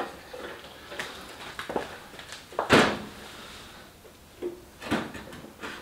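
Several short knocks and scrapes of objects being handled and moved about, the loudest nearly three seconds in.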